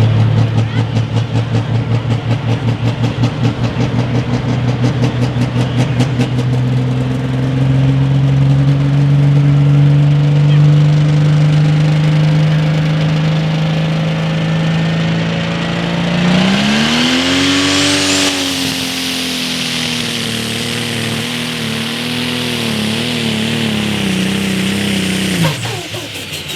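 Turbocharged diesel engine of a John Deere pro stock pulling tractor at full throttle under load, its pitch climbing slowly, with a rapid pulsing for the first several seconds. About 16 s in, the revs jump, a turbo whine sweeps upward and the engine note wavers. Near the end the throttle is chopped and the engine note drops off sharply.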